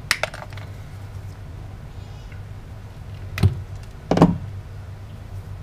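Hand tools and a metal wiper motor being handled on a workbench: a few quick clicks just after the start, then two knocks about three and a half and four seconds in, over a steady low hum.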